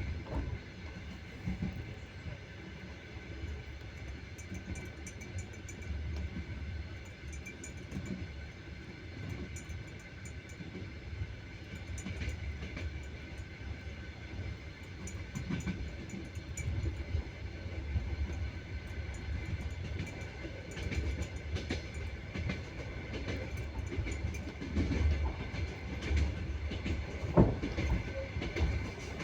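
Train running on the rails: a steady low rumble with the clatter of the wheels over the rail joints.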